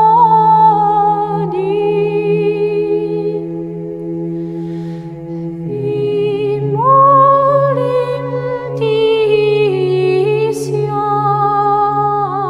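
Background music: a slow vocal chant in the Orthodox style, a melody sung over a steady held drone that steps down in pitch about six seconds in.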